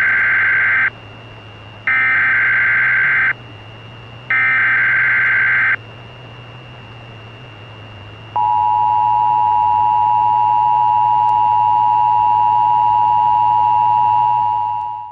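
Emergency Alert System tones: three loud, harsh buzzing SAME header data bursts, each about a second and a half long, sent about two and a half seconds apart. Then, about eight seconds in, the steady two-tone EAS attention signal begins and holds. Together they mark the start of the alert repeating. A faint steady hum and high whine lie underneath.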